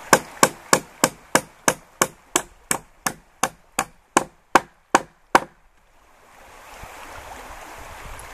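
Hammer nailing a wooden deck board, about sixteen sharp blows at roughly three a second, stopping about five and a half seconds in. A steady rushing noise follows.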